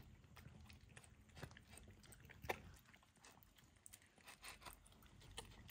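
Toy poodles eating from small bowls, with faint chewing and scattered crunches and clicks.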